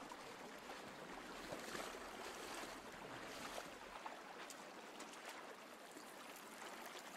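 Faint running water of a shallow river, an even rushing hiss with scattered small splashes.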